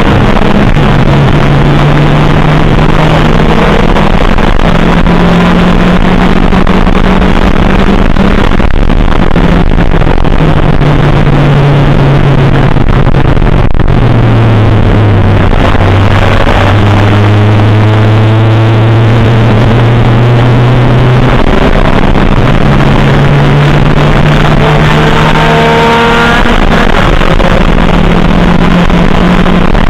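Race car engine heard from inside the cockpit while lapping, its pitch stepping up and down with throttle and gear changes, dropping low about halfway through and then climbing again near the end. The recording is very loud and distorted.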